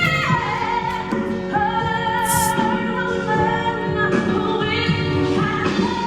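A woman's solo voice singing a show tune with held, sliding notes and vibrato, with instrumental accompaniment.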